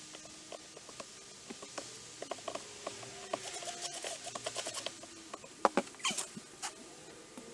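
Scattered light clicks and taps of deck-repair work, wood and tools being handled, with a few sharper knocks about six seconds in.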